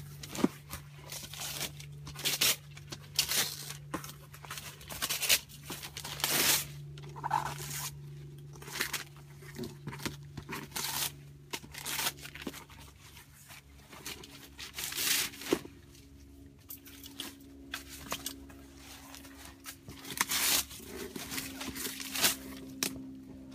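Gift-wrapping paper being torn and crumpled off a long cardboard box, in many irregular short rips and rustles.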